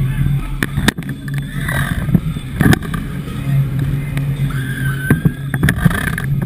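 Mondial Shake thrill ride running at speed, heard from inside a spinning car: a steady low machine hum under rushing air, with irregular sharp knocks and rattles as the car swings.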